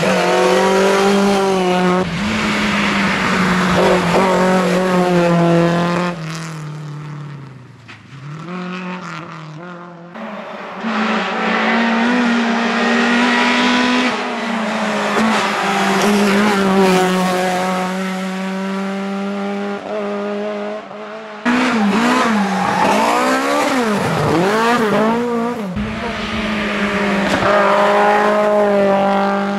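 Rally cars driven hard past one after another (a Lada VAZ saloon, a Peugeot hatchback, a Lotus Elise), engines revving high, the pitch rising and falling through gear changes. Each pass breaks off abruptly into the next.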